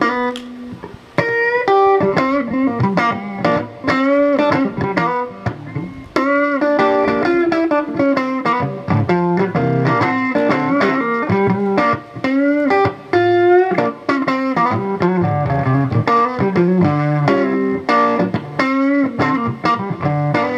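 Blues guitar solo between sung verses: single-note lines with string bends over the band's lower accompaniment.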